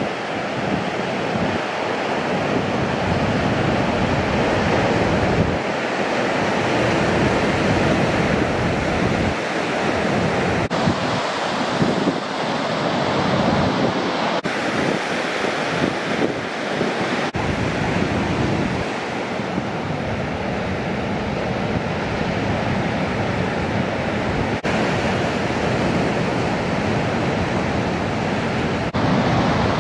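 Ocean surf: heavy waves breaking and washing through, with wind buffeting the microphone in low rumbles. The sound changes abruptly several times.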